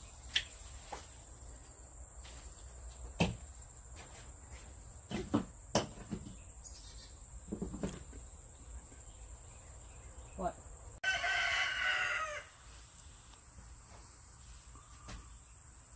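A single drawn-out rooster crow, about a second and a half long, some eleven seconds in. Before it come scattered short knocks and rustles of leaves and fabric being handled on a table.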